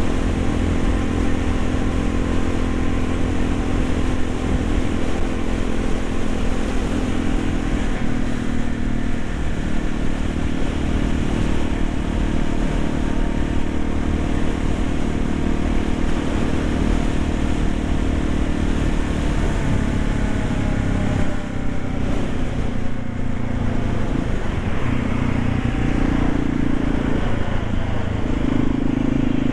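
Yamaha XT350's single-cylinder four-stroke engine running as the bike is ridden, its pitch shifting with the throttle, with a short drop in level about two-thirds of the way through and a couple of rises in pitch near the end.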